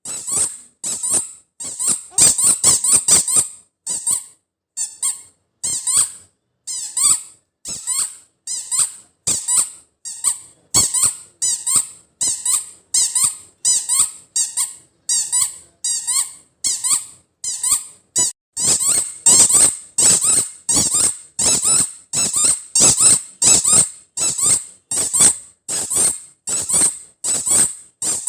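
Spiky rubber squeak toy ball squeezed over and over, giving short, high 'chuu chuu' squeaks about twice a second, with a brief fainter lull a few seconds in.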